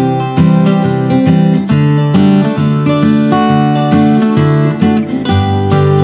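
Background music led by acoustic guitar, playing a run of plucked chords and notes.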